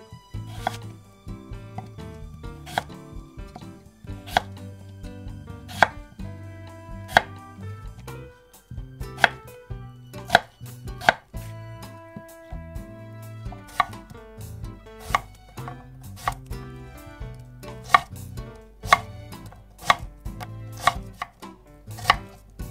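Kitchen knife cutting through daikon radish onto a cutting board: single sharp chops, roughly one a second and irregularly spaced.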